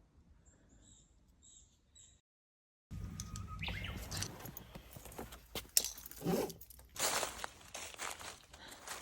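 A few faint, short, high bird chirps over quiet outdoor background. After an abrupt cut to silence, louder footsteps and rustling with crunching and clicks start about three seconds in.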